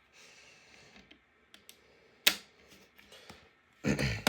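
Plastic DVD case being handled: scattered light clicks, a sharp click about two seconds in, and a louder clatter of handling near the end.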